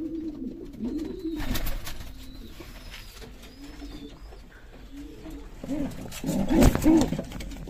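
Homing pigeon cooing: a run of low, rising-and-falling coos, loudest and most crowded near the end, with a single sharp knock just before the end.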